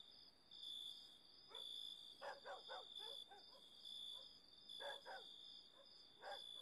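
Near silence with crickets chirping faintly in a steady pulsing trill, and a few faint soft sounds in between.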